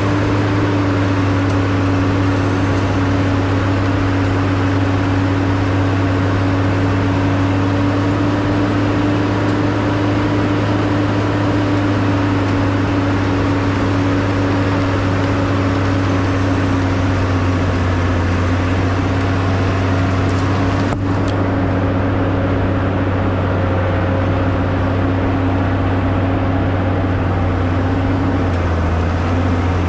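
Engine of a 1998 Bombardier BR-160 snowcat running steadily as the machine pushes snow with its front blade, heard from the cab. It makes a constant low drone with a humming tone above it, and the note drops slightly near the end.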